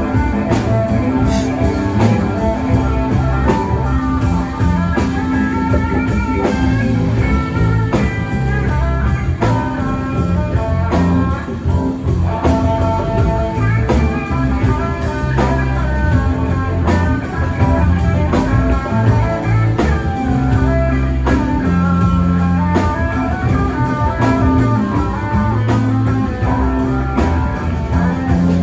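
Live rock band playing an instrumental passage: electric guitar running quick melodic lines over bass and drum kit.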